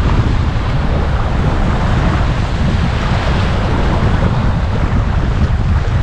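Wind buffeting the action camera's microphone in a loud, steady low rumble, over the wash of sea surf.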